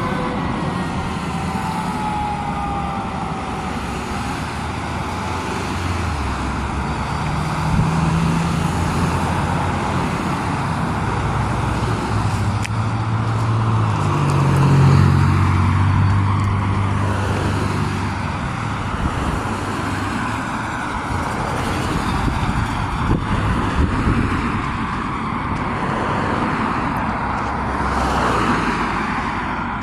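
Road traffic passing: tyre and engine noise of cars, with one vehicle passing close, its low engine hum loudest about halfway through. At the very start, the wail of a departing fire engine's siren falls and fades out.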